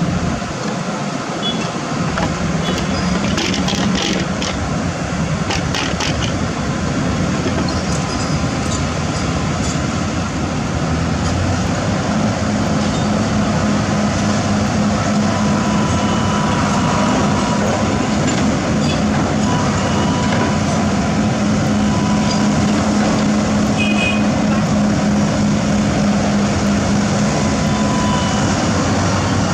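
Diesel engine of heavy construction machinery running steadily, its note growing louder and fuller about twelve seconds in as it takes on load. There is a faint high whine over it, and scattered sharp metallic clicks and knocks in the first several seconds.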